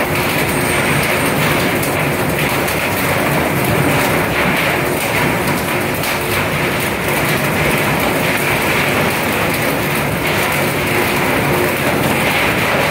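A fishing vessel's machinery running: a steady mechanical rumble and hiss with a light, uneven clatter.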